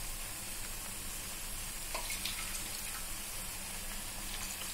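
Onion-tomato masala sizzling steadily in a kadai on the stove as water is cooked into it, with a couple of faint light clicks about two seconds in.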